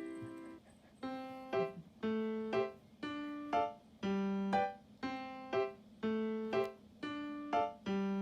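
Background music: a gentle piano-like melody of single decaying notes at an even pace, about two a second.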